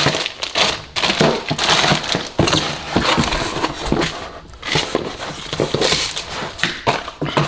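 Irregular rustling and crinkling of plastic packaging, with light clicks and knocks as small gasket-kit parts are handled.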